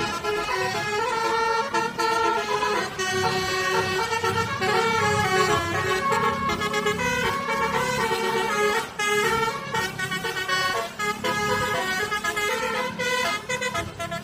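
Bus basuri (telolet) musical horn playing a tune, its notes stepping quickly from one pitch to the next, with a low rumble underneath.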